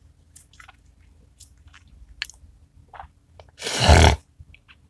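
Chewing with crunchy, clicky mouth sounds close to the microphone, in short scattered bites, then a loud rush of noise of about half a second a little before the end.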